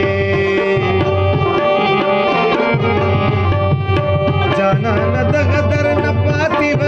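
Pashto tappa music: a tabla-style hand drum keeps a steady beat under long held melodic notes.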